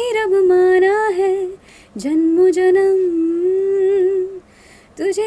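A woman singing a Hindi film song a cappella, with no accompaniment. She holds long notes with ornamented turns, and pauses briefly for breath twice.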